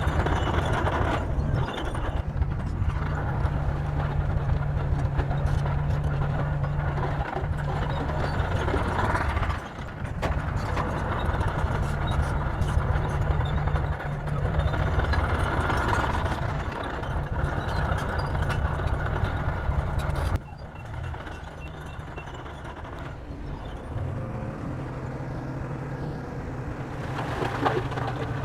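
Heavy diesel engines of earthmoving machinery running and working under load, with a sudden drop in loudness about two-thirds of the way through.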